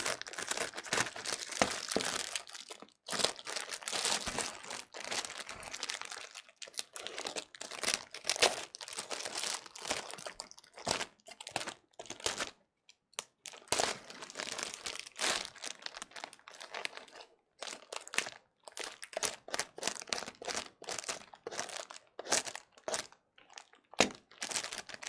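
Parcel packaging crinkling and tearing as it is unwrapped by hand: irregular crackling and rustling, with a few short pauses.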